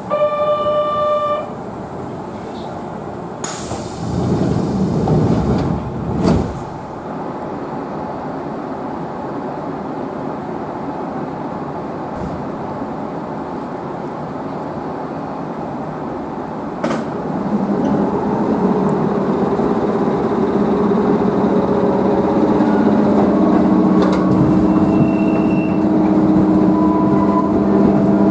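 Inside an electric train carriage: a steady buzzer tone of about a second and a half, then a loud hiss ending in a thud as the doors close. The train then pulls away, with steady running noise and, from about two-thirds of the way in, a motor whine that rises in pitch and grows louder as it gathers speed.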